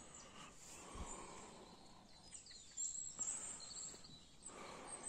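Faint outdoor background noise with a few faint, scattered bird chirps.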